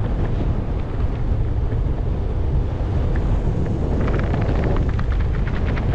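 Strong wind buffeting the microphone, a steady low rumble, while riding an electric skateboard. In the last two seconds, a windbreaker jacket flaps rapidly in the wind.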